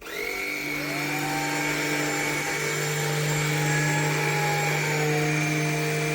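Tineco A20 cordless stick vacuum switched on: its motor spins up over the first second to a steady high whine, which dips slightly in pitch about five seconds in.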